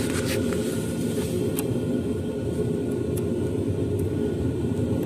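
Steady low background rumble, with a few faint light clicks scattered through it.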